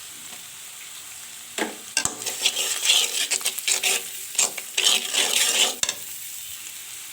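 Chopped onion, chili paste, turmeric and salt sizzling in hot oil in a pan. A spatula scrapes and stirs them in quick, irregular strokes from about a second and a half in until near the end, then stops while the sizzle goes on.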